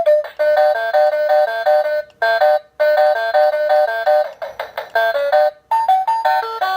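Toy cash register playing an electronic tune through its small speaker after scanning a barcode: a fast, bright beeping melody of short notes, with two brief pauses.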